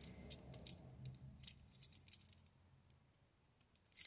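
Keys jingling on a key ring: a few light metallic jingles and clicks, the sharpest about one and a half seconds in, then quiet until another jingle right at the end.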